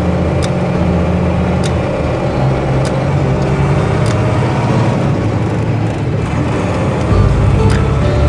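Mercedes-Benz Unimog 1300 L diesel engine running under way, a steady low drone heard from inside the cab. The note shifts slightly a few seconds in, and about seven seconds in a deeper, louder rumble comes in while passing close by a farm tractor. Light ticks repeat about once a second.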